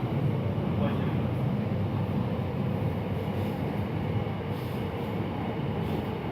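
Steady low rumbling noise with a faint steady hum above it and no clear single events.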